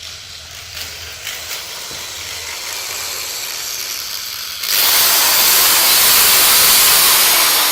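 A hiss builds slowly for a few seconds, then jumps suddenly to a loud, steady rushing hiss about two-thirds of the way through: the sound effect of the tool the torturer has just picked.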